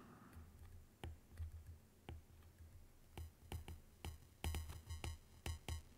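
Faint, irregular clicks and taps of a stylus tip on a tablet's glass screen during handwriting, with a few soft low thumps.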